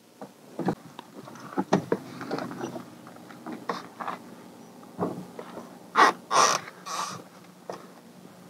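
Irregular rustling, clicks and knocks of someone handling gear and moving about at an open truck cab, with three louder crunches about six to seven seconds in.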